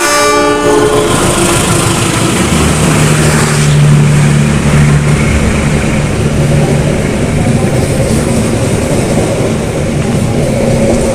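KRL electric commuter train running, a loud steady rumble and clatter of wheels on the rails, with a low steady hum from about two and a half to seven seconds in.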